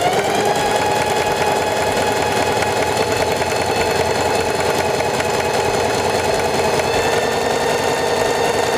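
Singer Heavy Duty 4411 sewing machine running steadily at full speed, sewing a short, wide zigzag stitch: an even motor whine over fast needle-bar clatter.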